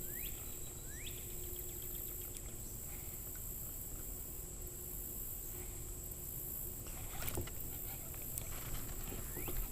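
Quiet river ambience from a kayak: a faint, steady wash of water and air noise, with a couple of short chirps near the start and a few small knocks about seven seconds in.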